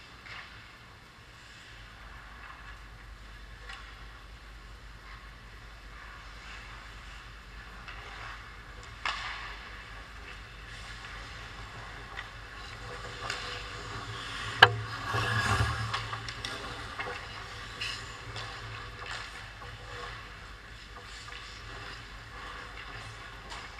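Ice hockey play in a rink: skates scraping and sticks clattering on the ice over a steady low hum. There is one sharp crack about halfway through, followed by a second or so of louder scraping and clatter.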